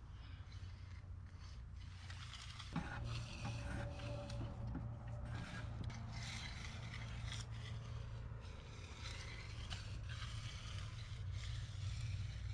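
Concrete finishing tools scraping across a fresh concrete sidewalk in repeated strokes: hand tools worked by kneeling finishers and a long-handled broom dragged over the slab. There is one sharp metallic clink about three seconds in, and a steady low rumble underneath.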